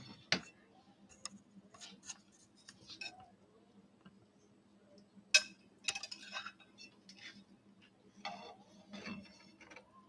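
Scattered clicks, taps and scrapes of a metal spatula against a ceramic casserole dish and a metal baking tray as vegetables are served out, the sharpest click about five seconds in and short clusters of taps around six and eight seconds. A faint steady hum runs underneath.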